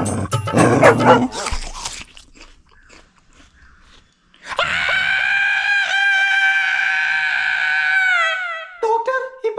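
A man imitating a dog: after a loud noisy scuffle in the first two seconds and a short lull, he lets out one long high yelping howl that falls in pitch at the end, followed by shorter whimpering yelps, a hurt dog's 'ki ki kiiee kii'.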